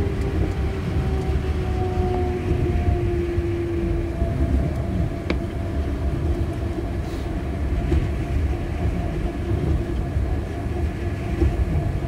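Running sound of an Osaka Monorail 1000 series train: a steady low rumble from its rubber-tyred bogies, with a motor whine that falls in pitch over the first three seconds as the train slows, then holds a steady tone. A single sharp click about five seconds in.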